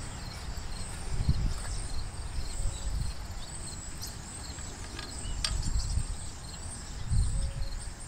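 Insects chirping steadily over a low, uneven rumble, with a few faint clicks of metal parts as a steel handlebar is set in place and its bolt started by hand, about four and five and a half seconds in.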